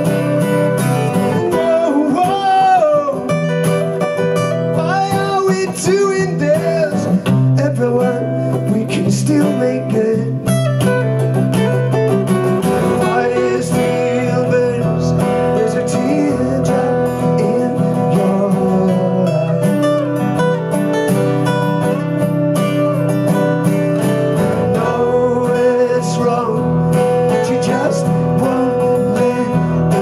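Two acoustic guitars playing a song live, strummed and picked, with a man singing the melody over them.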